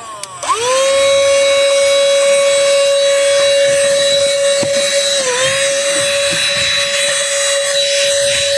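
Cordless handheld car vacuum cleaner switched on, its motor whining up to speed within about half a second and then running at a steady high pitch. About five seconds in, the pitch dips briefly and recovers.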